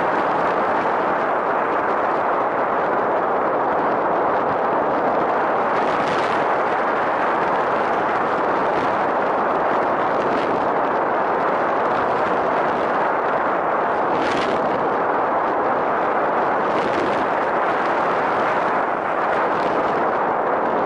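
Air rushing over the microphone of a camera riding on a model aircraft in flight: a steady, dense rush with a few brief louder gusts.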